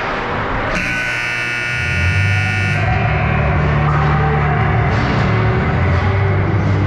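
Ice rink scoreboard buzzer sounds once for about two seconds, starting about a second in: the horn that ends the game. Low, bass-heavy music starts over the rink's background noise as the buzzer stops and keeps going.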